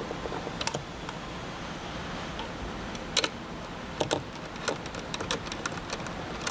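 Scattered light clicks and taps of a nut driver and metal parts as the nuts holding a relay board are worked loose inside a metal relay box. A couple of clicks come early, then a quicker, irregular run of them from about halfway.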